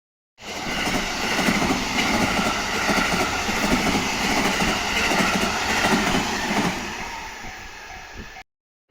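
A train passing close by at speed: a loud, steady rush of wheels on rail with high ringing tones running through it. It starts suddenly, fades near the end and then cuts off abruptly.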